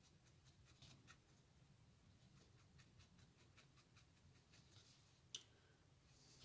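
Faint scratching and tapping of a thin wooden stick working paste through a plastic stencil onto wood, with one sharper click a little over five seconds in.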